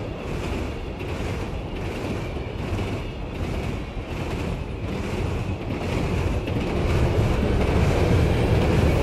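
A tram passing close by: a steady low rumble with a rushing hiss over it, growing louder toward the end and cutting off abruptly.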